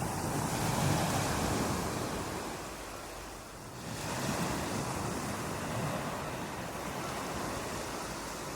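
Ocean waves breaking on a beach, a steady rush of surf that swells loudest about a second in, eases off, and builds again with the next wave about four seconds in.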